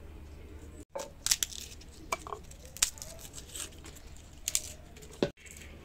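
Garlic being peeled with a small knife: the papery skins crackle and tear, with scattered sharp clicks of the blade. It starts about a second in and stops abruptly near the end.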